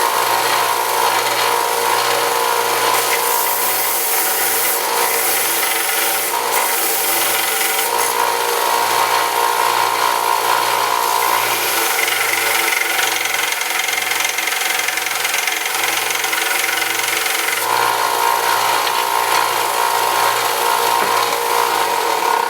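Belt sander running with a bronze brake backing plate held against the abrasive belt, grinding the old pad material off down to bare, shiny bronze. The grinding note comes and goes in strength as the plate is pressed on and eased off, over a steady motor hum.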